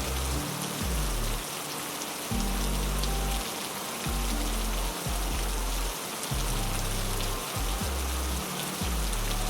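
Heavy rain falling in a steady hiss, with low, slowly changing sustained notes of background music underneath.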